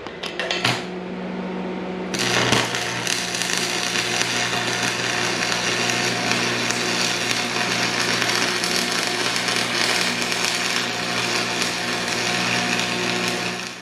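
Electric arc welding on a steel quick attach plate to touch up a cracked weld. A steady electrical hum is heard throughout. About two seconds in, the arc strikes and crackles steadily, then it stops just before the end.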